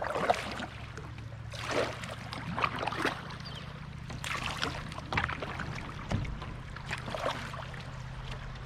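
A kayak running down river rapids: water rushing and splashing around the boat in irregular surges about once a second, over a steady low rumble.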